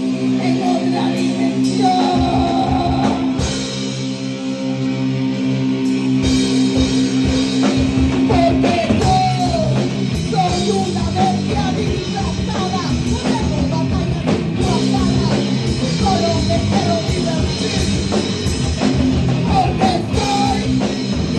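Live band playing loud, distorted heavy rock with electric guitars and a drum kit. Sustained guitar chords ring alone at first, the drums enter about two seconds in, and the full band drives hard from about six seconds.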